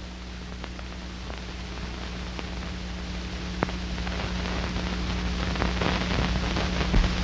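Steady hiss over a low mains hum, with scattered faint clicks, slowly growing louder: the background noise of an old film soundtrack between lines of narration.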